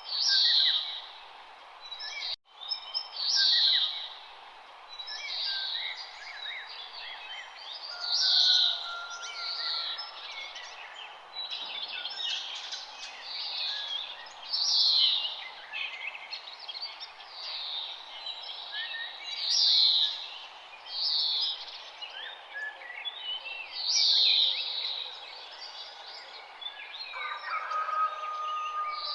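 Several wild birds singing and chirping, one bird repeating a loud high song phrase every few seconds over the others, against a steady background hiss of outdoor ambience.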